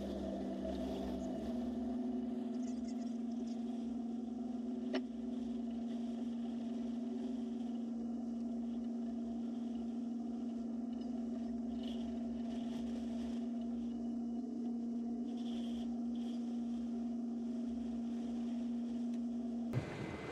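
A steady mechanical hum of a few held tones that steps up slightly in pitch about a second and a half in, then holds even until it cuts off abruptly near the end.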